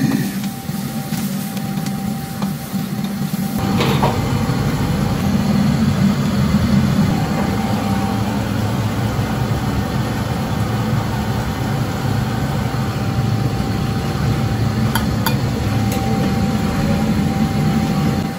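Commercial gas wok burner running with a steady low rush, which grows louder about four seconds in. A metal ladle clinks a few times against the wok or a seasoning tray late on.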